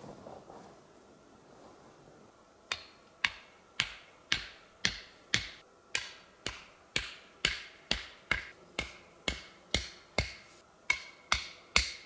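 A steady series of sharp knocks, about two a second, beginning about three seconds in, each with a short ringing tail.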